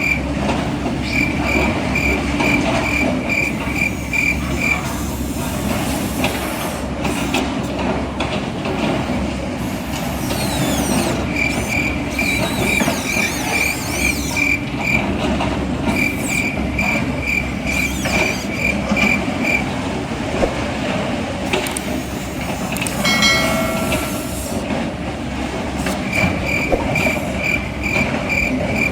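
Reversing beeper of RC construction machines: runs of high, evenly spaced beeps, about three to four a second, starting and stopping several times over a steady din of running machinery.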